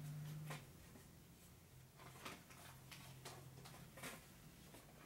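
Near silence: a low steady hum and a few faint taps and clicks, such as parts being handled.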